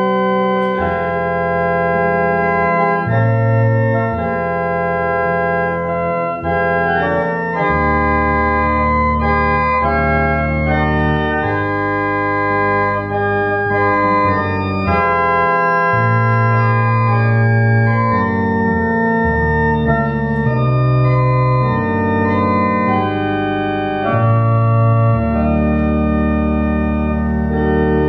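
Church organ playing a hymn in full held chords over a bass line, the chords changing every second or two.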